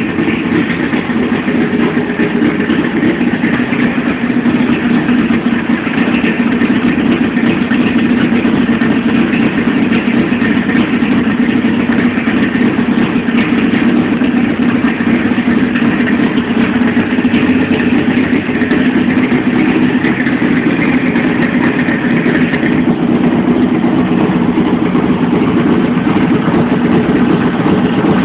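Nissan A15 inline-four pushrod engine with a high-lift 76 cam, big valves and 12.3:1 compression, idling steadily on its first test run right after being assembled. It is loud and even throughout, with no revving.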